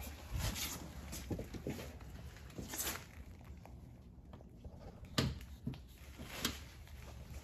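Scattered light clicks, knocks and rustling from hand work on a car's heater blower motor as it is being fitted in place, irregular with no rhythm.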